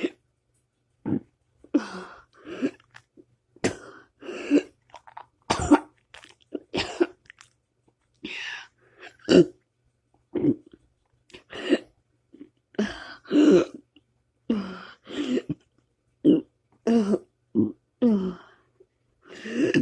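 A person burping over and over, a long string of short throaty burps about one a second, some of them gliding down in pitch.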